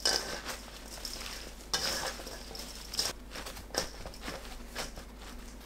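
Hands tossing and mixing julienned eggplant strips with salt in a stainless steel bowl: moist rustling and light squishing, with a few louder irregular rustles as handfuls are lifted and dropped.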